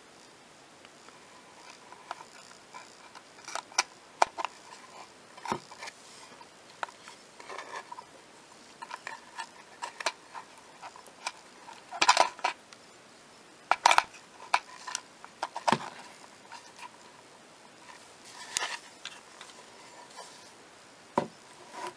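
Irregular plastic clicks and knocks from handling a quartz clock movement as an AA battery is pressed into its battery holder, with the loudest knocks about midway through.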